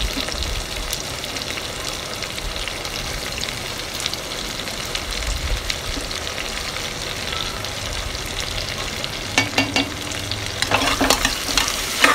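Sliced onions and potato pieces sizzling in hot oil in a pressure cooker pot, being sautéed until lightly brown. Near the end a spoon stirs them, clicking and scraping against the metal pot.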